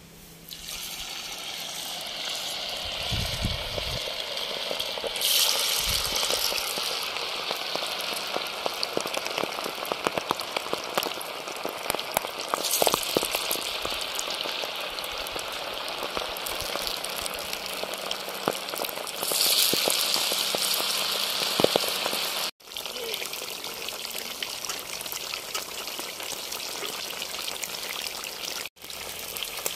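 Pieces of masala-marinated ribbon fish sizzling hard in hot oil in a clay pot, starting sharply as the first piece goes in. The sizzle swells louder three times.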